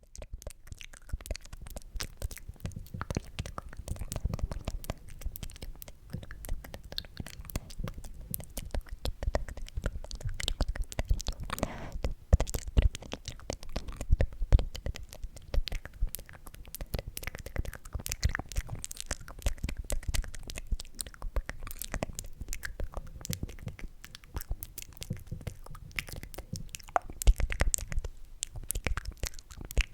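Close-miked ASMR mouth sounds: a dense, continuous run of wet, sticky clicks and smacks over soft low thumps.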